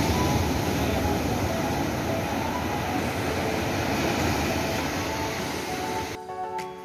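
Steady roar of breaking sea surf washing in over the shallows. Near the end the roar cuts off abruptly and background music begins.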